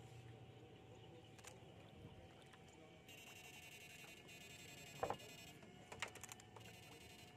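Electrofishing rig, faint: from about three seconds in, a high, rapidly pulsing electronic whine switches on and off a few times as the shocking pole is powered in the water, over a low steady hum. Two sharp knocks come near the end.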